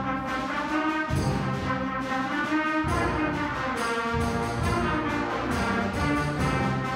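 Middle school concert band playing full, held chords with the brass in front. Low brass and bass notes strike anew every second or two.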